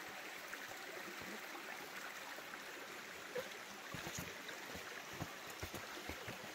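Footsteps and soft thumps of hiking on a rocky forest trail, over a steady rushing background noise. The thumps come more often in the second half.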